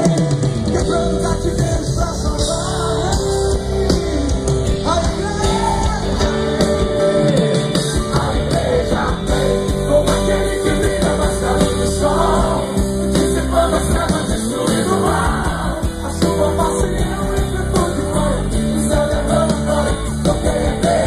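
Live gospel band playing a loud rock-style song with a lead singer, heard through a large outdoor sound system.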